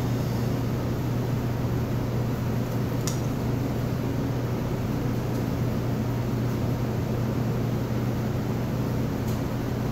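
Steady low hum of commercial kitchen machinery, with a short click about three seconds in.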